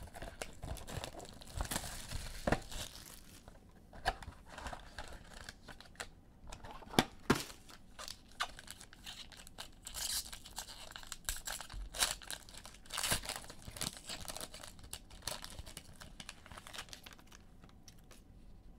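Trading-card pack wrapper being torn open and crinkled in the hands: irregular crackling with a few sharp snaps, thinning out over the last few seconds.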